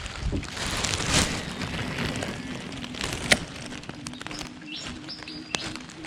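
A bird chirping briefly a few times over irregular small clicks and ticks, with one sharp click about three seconds in.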